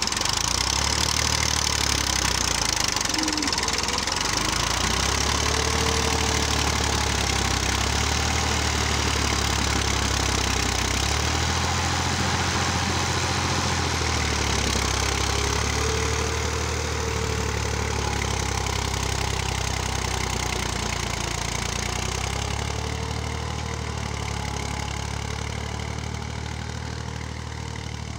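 Massey Ferguson tractor engine running steadily under load while pulling a tine cultivator through wet soil, with a knocking clatter. It fades somewhat over the second half as the tractor draws away.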